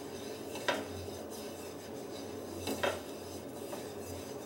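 A nonstick tawa being greased, an eggplant stem dipped in oil rubbed over the pan, with two light clinks of kitchenware about two seconds apart.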